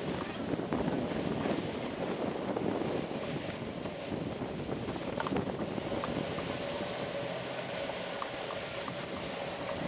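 Wind rushing over the microphone of a 360 action camera on a moving bicycle, a steady rumbling noise with faint city traffic under it. A steady hum joins about six seconds in.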